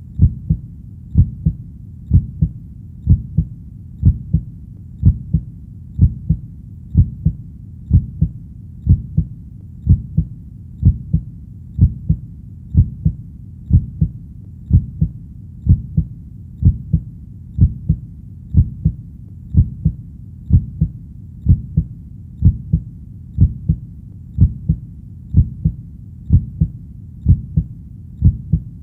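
Heartbeat sound: a steady, even rhythm of low lub-dub beats, about one a second (around 60 beats a minute), each a close double thump, over a faint steady background.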